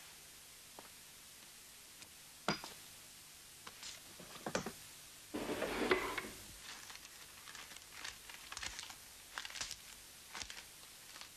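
Light clicks, knocks and rustling from objects and papers being handled on a desk, with a denser burst of rustling about five seconds in.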